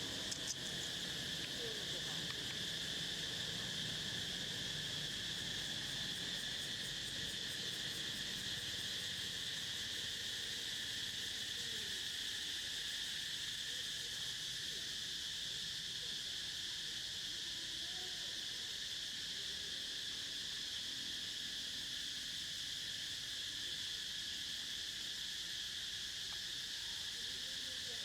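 Steady, unbroken high-pitched insect chorus.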